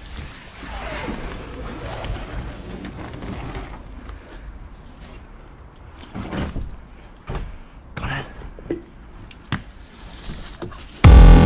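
Rustling and scraping, then a few scattered knocks and thuds; loud electronic music with a heavy beat cuts in abruptly near the end.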